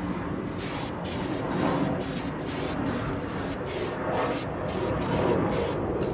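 Aerosol can of VHT Nightshades tint spray hissing as a first coat goes onto tail-light lenses, the hiss dipping briefly about twice a second.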